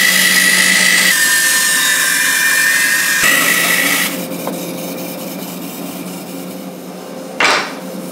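Axminster BS-11 bandsaw ripping a thin strip from a rebated board: the blade cuts with a loud hiss and a steady high whine for about four seconds, then the saw runs on unloaded with a lower, quieter hum. A brief burst of noise comes near the end.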